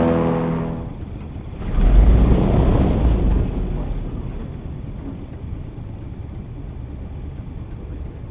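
Airboat's engine and propeller running with a strong, even pitch, then dying away within the first second as the boat slows. A louder low rumble follows about two seconds in, settling into a steady low rumble with the boat idling on the water.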